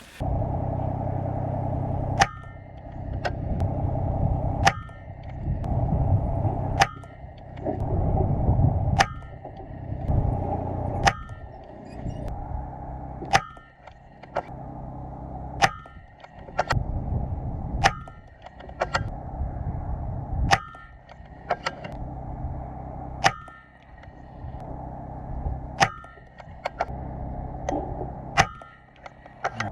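Air rifle firing H&N slugs in a steady string, a sharp shot every one to three seconds, each with a brief ring after it. A low rushing noise runs underneath between the shots.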